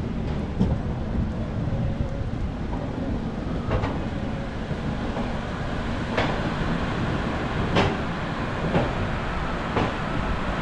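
Darjeeling Mail passenger train pulling into the station: a steady rumble with a sharp clank now and then, about five times.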